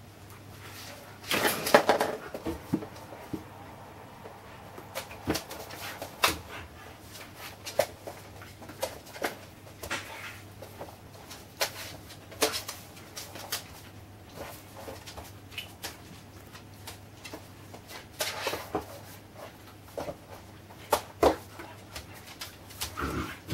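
Leonberger puppy playing on a laminate floor: scattered clicks and knocks of claws and paws, with a few louder scuffling bursts as it tussles with a plush toy.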